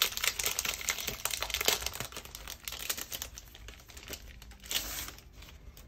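Large paper reference sheets rustling and crinkling as they are handled and shuffled. The noise is busiest in the first couple of seconds, thins out, and has a brief flurry near the end.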